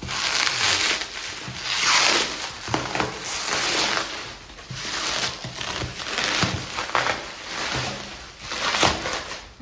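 A cardboard shipping box being opened and unpacked by hand, with repeated rustling, crinkling and scraping of cardboard and packing material and a few sharp clicks and knocks.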